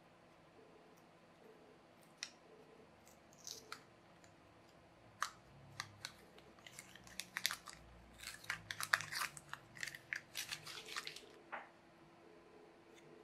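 Small plastic kit parts being handled and fitted together by hand: a quick run of faint clicks and crackles, busiest in the middle, over a faint steady hum.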